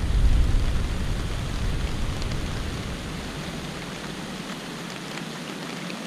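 A sudden rain shower falling with a steady hiss. A low rumble underneath dies away about halfway through.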